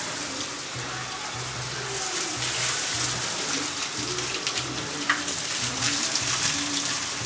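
Shallow rocky stream rushing and splashing, a steady wash of water noise. Faint low tones pulse on and off underneath it.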